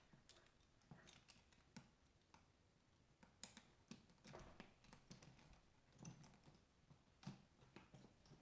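Faint, irregular clicks and light taps of a leather bag and its hardware being handled, the loudest about three and a half, six and seven seconds in.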